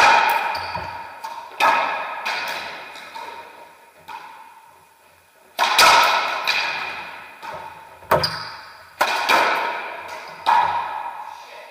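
Racquetball rally: the hollow rubber ball cracks off racquet strings and court walls about eight times, each hit loud and sharp with a long echo in the enclosed court. After the first two, there is a lull of about three seconds, then the hits come quicker near the end.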